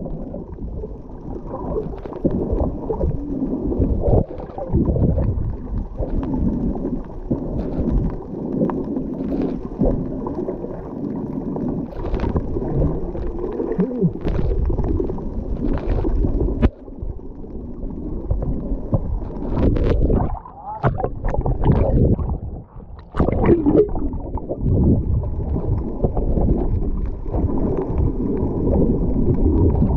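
Underwater water noise picked up by a camera held below the surface: a low, muffled, uneven churn of water moving around the camera, with gurgles and a few faint sharp clicks.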